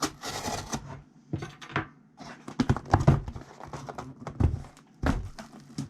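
Packaging being handled and opened by hand: irregular rustling and tearing with several sharp knocks, the loudest about three and four and a half seconds in.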